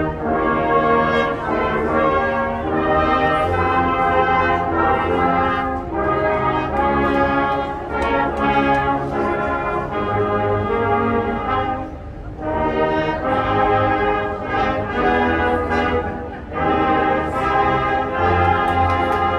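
Marching band's brass section playing a tune in full, held chords, phrase after phrase with short breaks between phrases.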